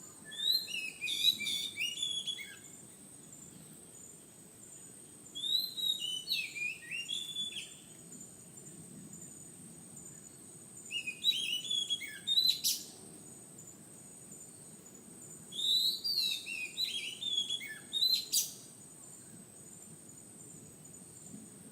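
Magpie-robin singing: four phrases of quick, varied whistled notes, each lasting two to three seconds, with a few seconds of quiet between them.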